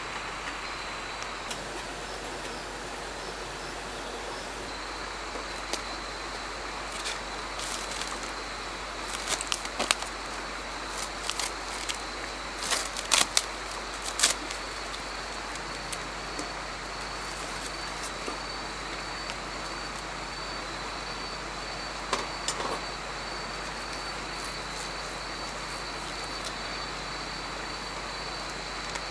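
Steady high-pitched chirring of autumn insects. Short bursts of crinkling plastic packaging being handled come in several clusters in the middle and once more later.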